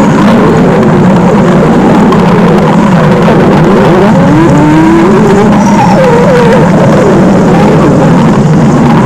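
Stomach growling: a loud, continuous gurgling rumble, with wavering squeaky glides rising and falling about halfway through.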